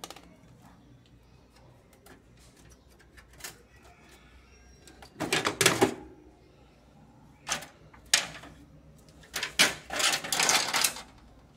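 Plastic front cover and grille frame of a window air conditioner being pulled off and handled: small clicks, then several loud, short scraping and clattering bursts about five seconds in and again near the end.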